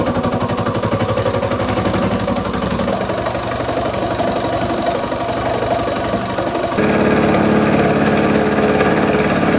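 Small milling machine cutting a cast aluminium block with an end mill: a steady machine hum with a rapid, even rattle. The sound changes abruptly about three seconds in and again about seven seconds in, getting louder with a steadier hum after the second change.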